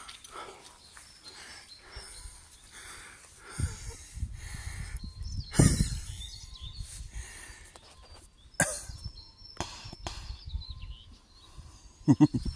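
Outdoor ambience: wind rumbling on the phone's microphone, faint scattered bird chirps, and a few bumps from the phone being handled, the loudest about halfway through. A brief animal call comes near the end.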